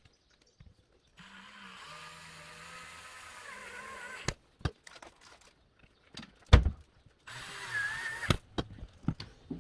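Cordless electric screwdriver driving screws: a run of about three seconds, then knocks and clicks, then a second, shorter run of about a second, with its whine wavering in pitch as the load changes.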